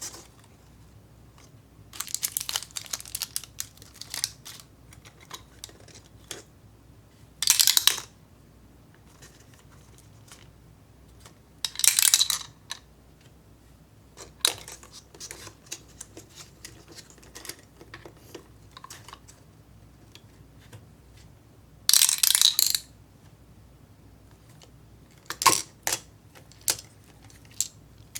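Small plastic candy-kit parts and candy pieces being handled: light clicks and taps, with four short rustling bursts and a few sharper clicks.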